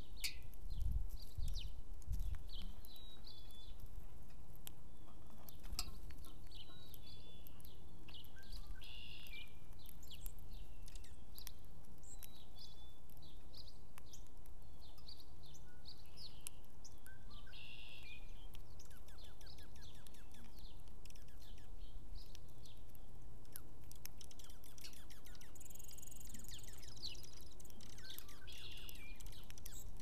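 Small backyard songbirds chirping and calling in short, scattered notes, with a thin, higher-pitched call near the end, over a steady low background rumble.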